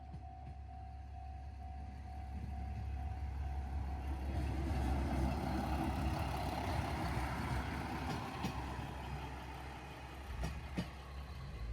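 Railway level-crossing alarm sounding a steady pulsing tone. After about four seconds a diesel train passes, its rumble building, peaking in the middle and easing off, with a few sharp wheel clacks near the end.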